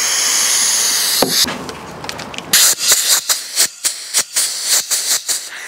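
Compressed air hissing steadily through an air-line fitting to pressurise a welded aluminium radiator, cut off after about a second with a click. Then a quick run of about a dozen squirts from a trigger spray bottle, spraying soapy water over the welds to check them for leaks.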